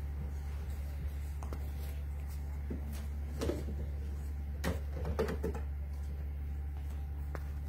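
Bull terrier puppies play-fighting, giving a few short vocal sounds about halfway through, over a steady low hum.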